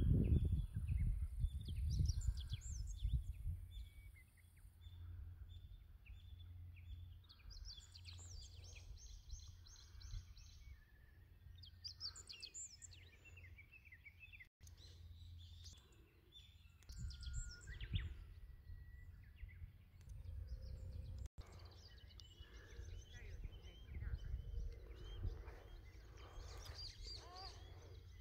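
Small birds singing and chirping, many short calls and trills, over a low rumble on the microphone that is loudest in the first few seconds.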